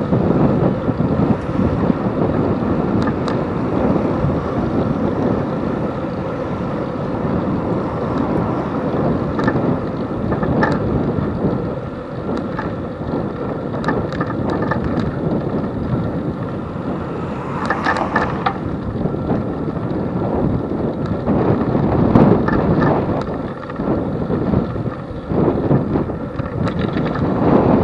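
Wind rushing over the microphone of a camera mounted on a moving bicycle, a steady rumble along with road noise. About eighteen seconds in, a brief higher-pitched sound rises above it.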